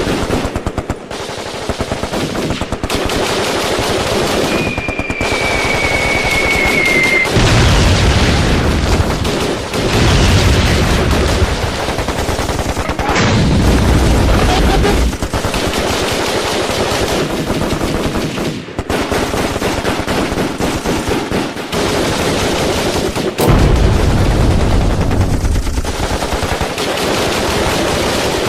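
Battle sound effect: rapid, continuous machine-gun and rifle fire, broken three times by heavy explosion booms. Early on a high whistle sounds for about three seconds, falling slightly in pitch.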